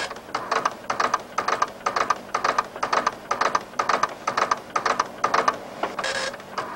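Telex teleprinter printing: rapid mechanical clattering keystrokes in short bursts, roughly three a second, with a brief hiss about six seconds in.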